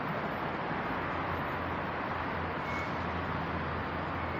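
Steady ambient noise of an open-sided elevated train station concourse: an even rushing hiss with a low hum underneath and no distinct events.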